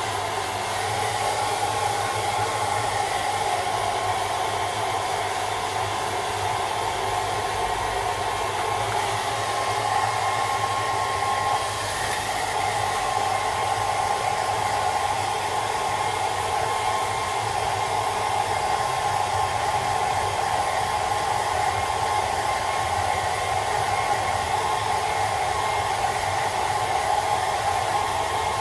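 Hair dryer running steadily, a continuous blowing noise with a strong mid-pitched hum, briefly shifting in tone about twelve seconds in.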